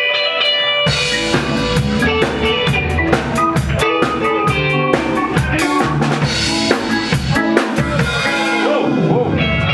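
Live ska band playing an instrumental passage without vocals: a pitched melody line, with the drum kit and bass coming in about a second in.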